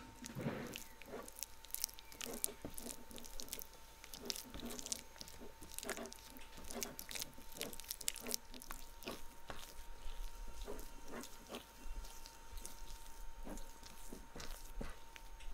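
Silicone spatula stirring and scraping a thick, sticky paste around a stainless steel bowl: irregular short scrapes and light knocks on the metal. Near the end a wire whisk takes over the mixing. A faint steady tone runs underneath.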